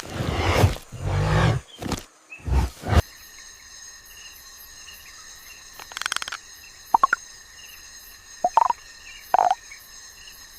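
Several loud, rough bursts of sound in the first three seconds. Then a steady, high-pitched insect chorus, with a few short chirping calls over it near the end.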